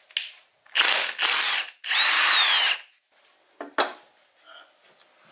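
Milwaukee Fuel brushless cordless power tool running in two runs of about a second each, backing out the bolts of an engine's oil pump and balancer shaft assembly. The pitch falls during the second run, and a short knock follows about a second later.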